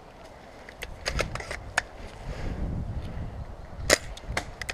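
Scattered sharp cracks of airsoft gunfire, a loud one just before the end, over the rustle of a player's gear and movement.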